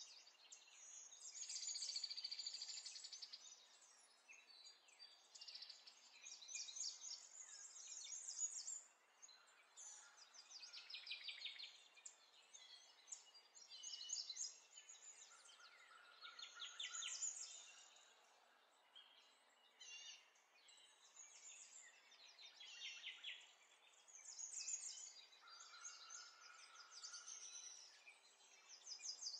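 Songbirds singing and chirping in quick high trills and twitters that come and go every second or two, with a few short steady whistled notes between them.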